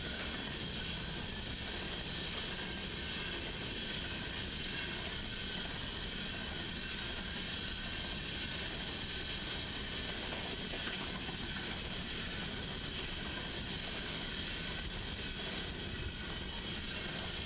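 Union Pacific coal train rolling past, a steady rumble and hiss without a break.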